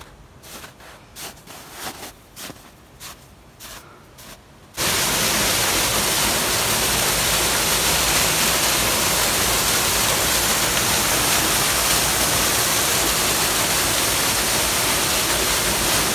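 Footsteps in snow, about two a second, for the first few seconds. Then, suddenly, the steady loud rush of water running beneath the ice and icicles of a partly frozen waterfall.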